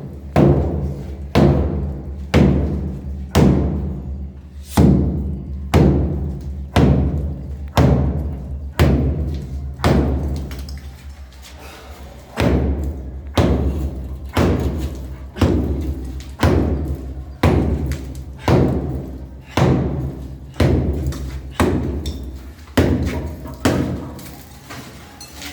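Heavy hammer blows on brickwork, about one a second with a short pause near the middle, as the bricks are broken up.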